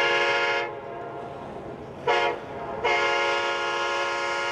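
Train horn blowing in a pattern of blasts: a long blast that ends in the first second, a short blast about two seconds in, then a long blast of about two seconds near the end.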